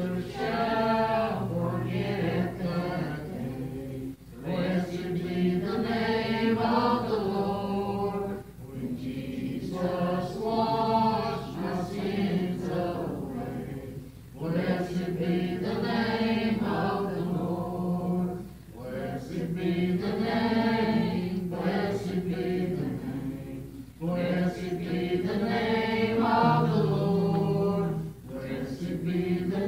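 Slow sung chant: voices singing long held phrases of a worship song, each phrase broken by a short pause every four to six seconds.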